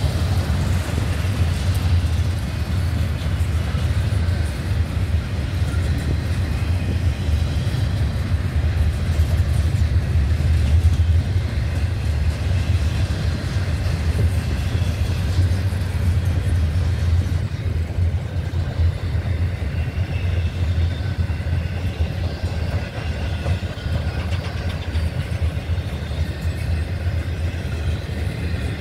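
CSX intermodal freight train's double-stack and trailer cars rolling past: a steady low rumble of steel wheels on rail, easing a little just over halfway through.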